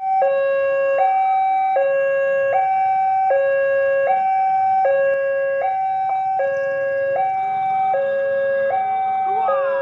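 Railway level-crossing warning alarm sounding an electronic two-tone signal, a high and a low note alternating about every three-quarters of a second. It warns that a train is approaching as the crossing barrier comes down.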